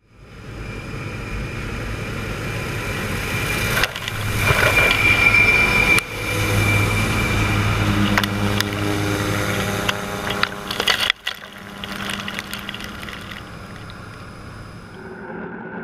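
Harvest machinery running, heard across several clips joined with abrupt cuts. It fits a combine harvester's engine and threshing works.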